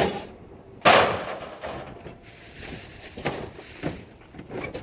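Scrap metal pieces thrown out onto a pile: two loud clanging impacts about a second apart, followed by several lighter clanks.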